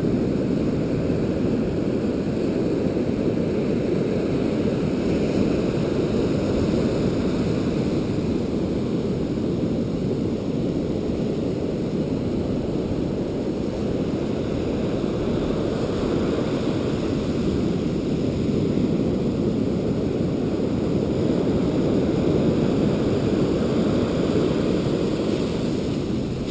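Strong wind rumbling steadily on a GoPro's microphone, mixed with the wash of ocean surf.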